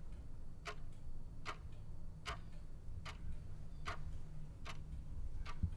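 A clock ticking steadily, a little more than one tick a second, over a low hum, used as a time-passing sound effect.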